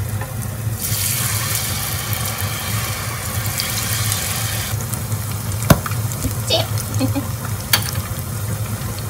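Battered green pepper pieces dropped into hot tempura oil: a loud sizzle starts about a second in and lasts about four seconds, then settles to quieter bubbling frying. A few sharp clicks of utensils against the pan come in the second half, over a steady low hum.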